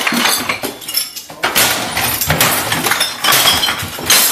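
Repeated crashes and clatter of objects being smashed and knocked over in a room, with glassy clinks among the impacts.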